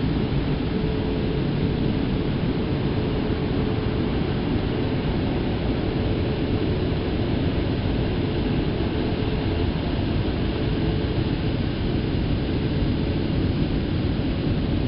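Automatic gantry car wash heard from inside the car: a steady low rumble of the machine with water spray and rotating brushes working over the bodywork and glass. A faint steady hum runs underneath and stops about nine seconds in.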